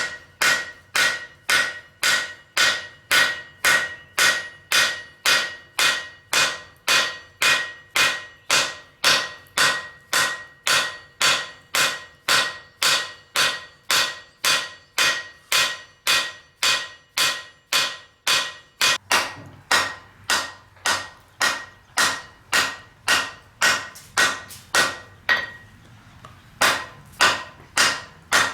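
Blacksmith's hammer striking hot steel on an anvil in a steady rhythm, a little over two blows a second, each blow ringing. There is a brief pause near the end, then the hammering resumes.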